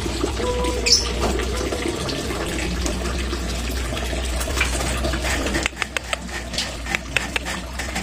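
Steady rush of running water with a low rumble under it, dropping away abruptly a little before six seconds in, followed by scattered light clicks and ticks.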